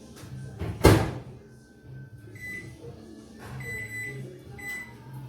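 Microwave oven door shut with a sharp click about a second in, then a few short keypad beeps as the 3-minute cooking time is set.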